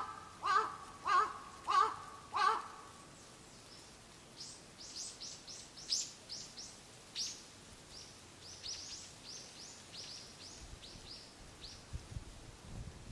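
A crow cawing five times in quick succession, harsh calls about half a second apart, followed by a long run of quick, high, downward-sweeping chirps from a small songbird.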